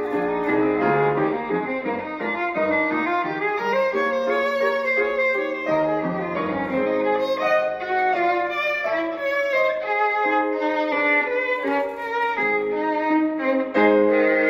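Viola playing sustained bowed melody notes over a grand piano accompaniment.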